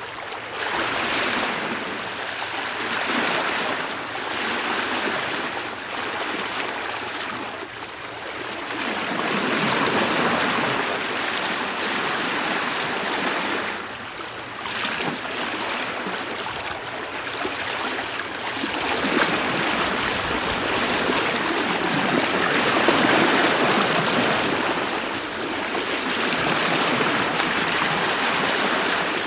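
Bow wave of a sailing ship at about 4 knots, water rushing and splashing beneath the bowsprit. The wash swells and eases every few seconds, loudest for a stretch in the second half.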